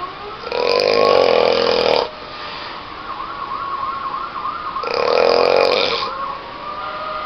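A person snoring loudly: two snores about four seconds apart, each lasting a second or more, with a faint wavering tone in between.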